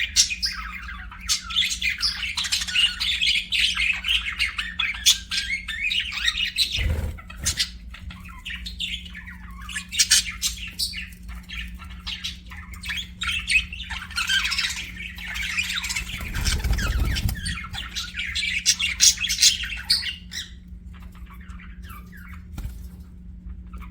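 Budgerigars chattering and chirping in a dense run of quick, scratchy warbles and squawks, thinning out near the end. A faint steady low hum runs underneath, with a low thump and, later, a brief low rumble.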